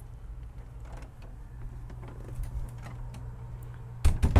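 Creaks and footsteps on the wooden floor of a classic wooden yacht as someone walks through it, over a steady low hum, with a few loud knocks near the end.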